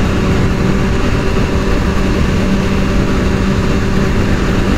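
Kawasaki ZX-6R 636's inline-four engine running at steady revs while cruising, with wind rushing over the helmet microphone.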